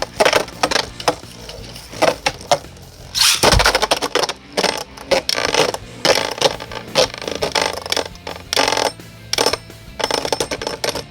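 Beyblade spinning tops, a 3D-printed Celestial Ares and Tempest Lucifer, clashing and clattering against each other and the plastic stadium walls in quick, irregular hits. One heavy knock comes about three and a half seconds in.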